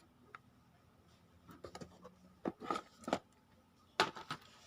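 Small hard pieces clicking and rattling in short bursts, as the die grinder's accessory bits are handled in their plastic case, with a sharper click near the end.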